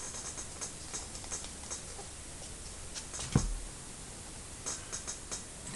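Trading cards being handled and flipped through by hand: a few light clicks and ticks, with one louder knock about three and a half seconds in.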